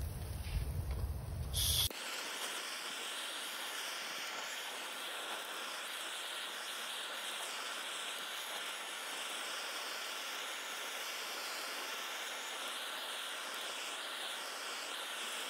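Chicken skewers sizzling over a charcoal grill: a steady, even hiss. It follows a low rumble that cuts off abruptly about two seconds in.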